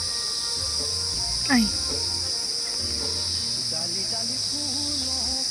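Steady chorus of crickets, a continuous high-pitched trill, with a single short falling whistle about one and a half seconds in.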